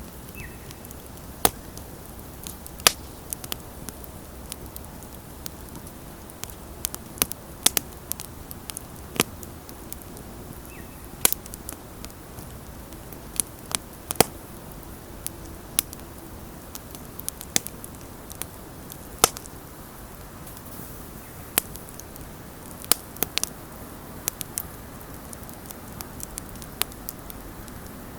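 Wood bonfire crackling: irregular sharp pops and snaps from the burning wood, a few much louder than the rest, over a steady hiss of the flames.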